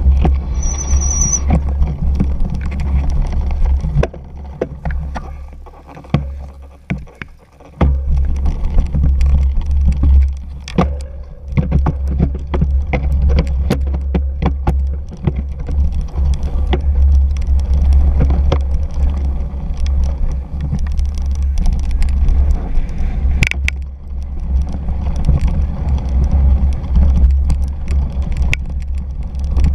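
Cyclocross bike ridden over bumpy grass and dirt, heard from the bike-mounted camera: a steady low rumble of wind and vibration with frequent clicks and rattles as the bike jolts over the ground, easing briefly about five seconds in. A short high squeal sounds about a second in.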